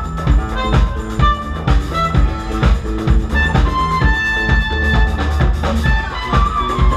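Live band playing: a drum kit keeping a busy beat over bass, with long held high notes over it, strongest from about halfway in.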